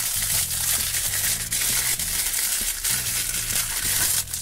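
Crinkly plastic blind bag being torn open and crumpled by hand: a dense crackling rustle.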